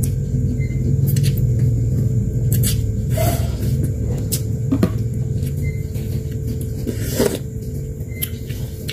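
Close-up eating sounds: noodles slurped and chewed, with short wet mouth clicks and smacks scattered through, over a steady low hum.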